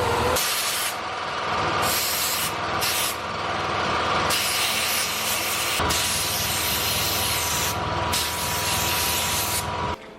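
Welding of the steel steering-box conversion bracket plates onto the frame: a frying, crackling hiss in several bursts of a second or two, with short pauses between beads. It cuts off suddenly just before the end.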